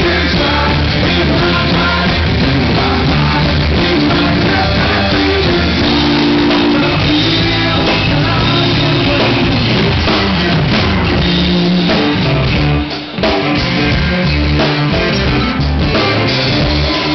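Live rock band playing: a Telecaster-style electric guitar and a drum kit, with a man singing. The playing drops out briefly about thirteen seconds in.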